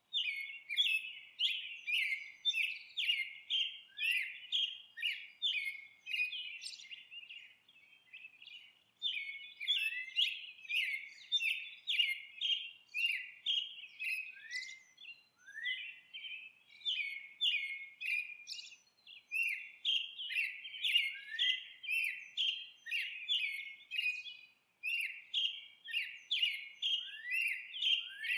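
Bird chirping in quick runs of short, high notes, several a second, broken by brief pauses.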